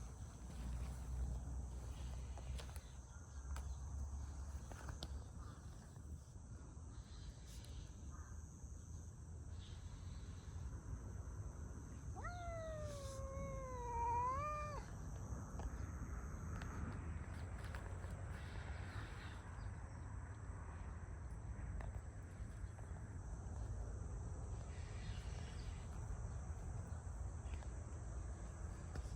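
A cat gives one long, wavering meow about twelve seconds in, lasting over two seconds, its pitch dipping and then rising at the end, over a steady low background rumble.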